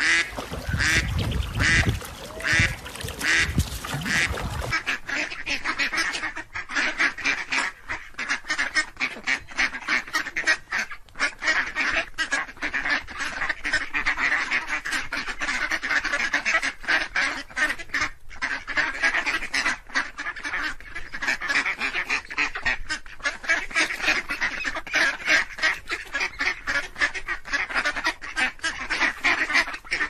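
Ducks quacking: about two separate quacks a second at first, then from about five seconds in a dense, unbroken chatter of many ducks calling at once.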